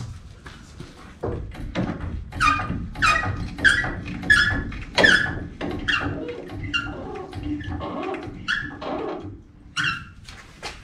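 Hydraulic floor jack being pumped by its long handle, a squeak and a clunk on each stroke about every half second, lifting the front wheel to compress the spring-less coilover shock.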